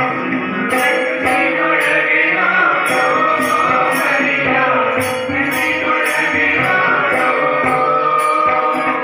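Group devotional singing (bhajan) into microphones, accompanied by an electronic keyboard and a hand percussion instrument keeping a steady beat about twice a second.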